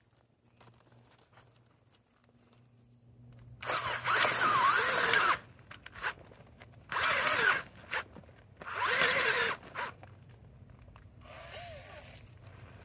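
Cordless drill turning a spiral garden auger bit, boring a planting hole into loose soil. The motor runs in three bursts, the first about a second and a half and the next two shorter, its pitch rising and falling with the load, then a fainter short run near the end.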